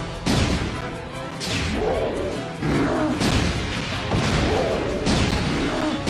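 Cartoon fight sound effects, repeated crashes and whooshes about once a second, over dramatic background music during a dinosaur battle.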